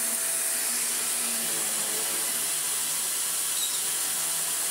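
Shark Speed Lift-Away NV680 upright vacuum cleaner running steadily on a test run after repair and reassembly: a steady, high, airy rush with a faint steady whine.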